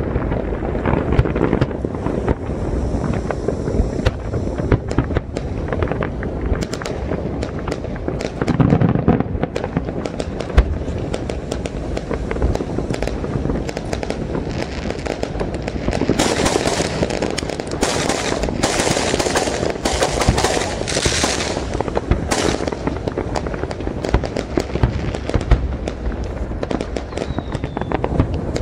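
Fireworks display: aerial shells bursting one after another in a continuous barrage of booms and crackles, with a denser run of crackling a little past the middle.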